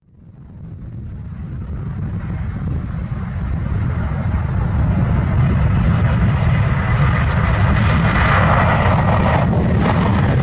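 USAF C-40 Clipper (Boeing 737-700) twin turbofan jet engines on a touch-and-go roll down the runway. It is a deep rumble with a rushing hiss that fades in and grows steadily louder, loudest in the last few seconds.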